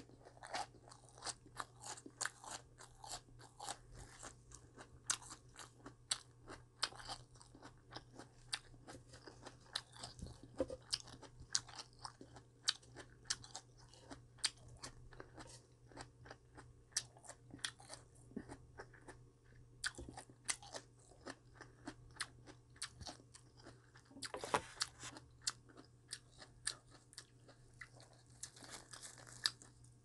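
Close-up chewing of crunchy vegetables, a steady stream of crisp crunches several a second, with a louder run of crunches about three-quarters of the way in.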